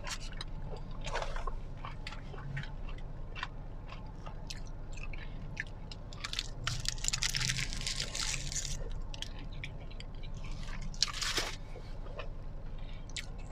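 Close-up chewing and biting into a chicken shawarma wrap, with crunching and wet mouth sounds. It comes in short irregular crunches, busiest about two-thirds of the way through, over a steady low hum.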